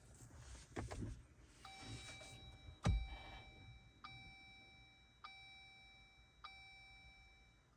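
2019 Jeep Wrangler JL's instrument-cluster warning chime sounding as the ignition is switched back on: a chime held about a second, a sharp click about three seconds in, then three more chimes a little over a second apart, each fading out.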